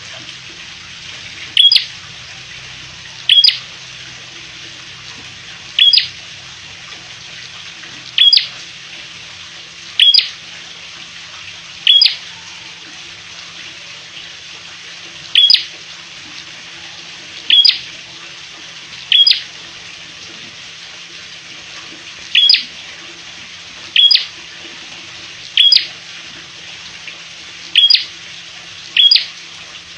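A caged prenjak, a small warbler of the prinia family, repeats a short, sharp, high call note about every one to three seconds, fourteen times in all. A steady hiss runs underneath.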